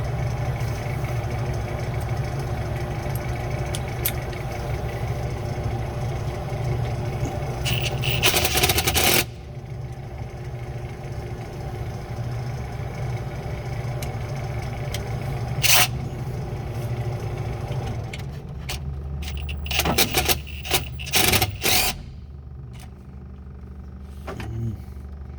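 A hose clamp being tightened with a socket: scraping and sharp clicks from the tool, loudest in a noisy burst about eight seconds in and a cluster of clicks about twenty seconds in, over a steady mechanical hum.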